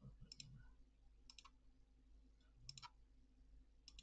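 Faint computer mouse clicks: four quick double clicks, each a press and release, about a second apart, over a low steady hum.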